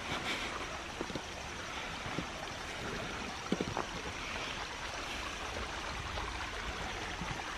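Small woodland creek trickling and splashing over rocks in a steady rush of water, with a few brief knocks about a second in and again around the middle.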